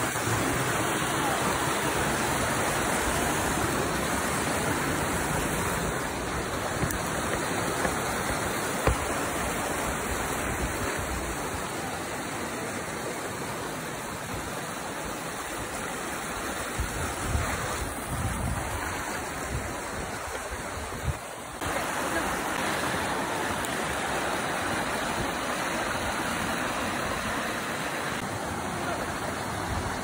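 Small rocky creek rushing and splashing over stones and low cascades: a steady hiss of running water.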